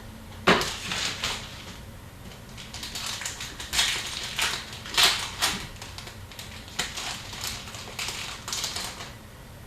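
Trading cards and pack wrappers being handled: a string of irregular rustles, crinkles and clicks as hockey cards are sorted between calls.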